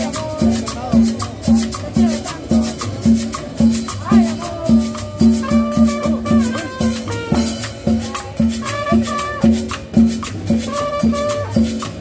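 Live cumbia from a street band: drums and shaken percussion keep a steady dance beat, and a trumpet melody joins about halfway through.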